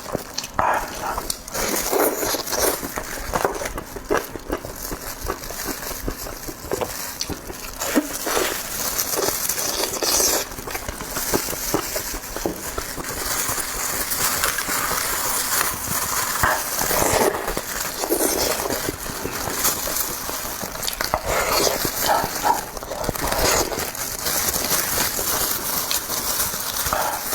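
Close-miked eating sounds: a person chewing and biting food, with many small wet clicks and crackles from the mouth.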